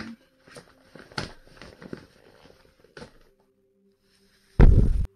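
Crackling and rustling of the clear plastic of an MSA escape hood being handled, with one louder crinkle about a second in. Near the end comes a single very loud thump, a gloved hand knocking against the camera.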